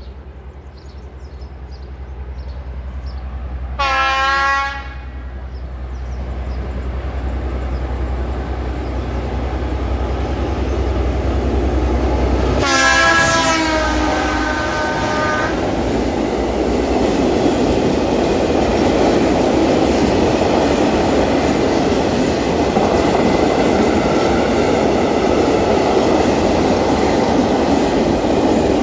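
T448p diesel locomotive hauling a freight train past at close range. Its low engine drone grows as it approaches, and it sounds its horn twice: a short blast about four seconds in and a longer one about thirteen seconds in. After that comes the steady rumble and clatter of the freight wagons rolling by.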